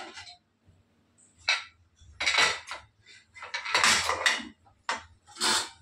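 Metal pressure cooker lid being twisted open and lifted off the pot, a series of short metallic clanks and scrapes. The cooker has already lost its pressure, so there is no steam hiss.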